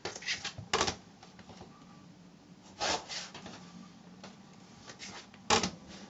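Rotary cutter cutting through cotton fabric on a cutting mat, with pieces and a plastic ruler handled: a few short, separate crisp sounds, near the start, around three seconds in and again near the end, over a faint steady hum.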